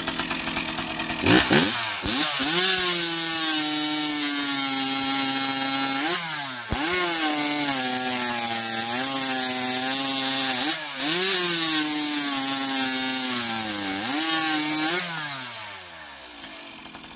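Ported Stihl 038 Magnum two-stroke chainsaw with a tuned expansion pipe, revved up and cutting through a log at full throttle. The engine note dips briefly twice and recovers, then drops back to idle near the end.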